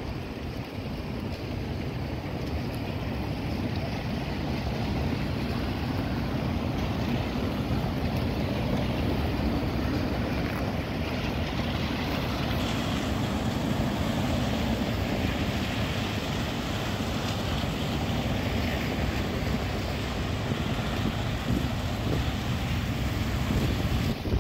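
Steady city street noise: traffic hissing on wet roads, with wind rumbling on the microphone.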